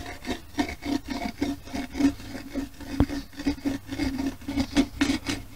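Smoothing stone rubbed in quick repeated strokes, about four a second, over the surface of a dried clay pot wetted with a little water, burnishing it smooth. A single sharp click about three seconds in.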